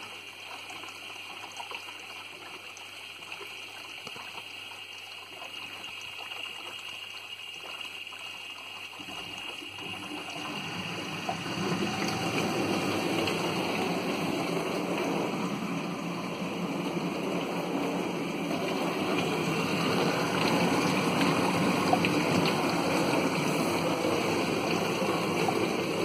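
Siemens dishwasher taking in water through its inlet and softener chamber, a steady trickling rush that grows clearly louder about ten seconds in. It is filling normally with the newly fitted flow-meter sensor, with no E14 flow error.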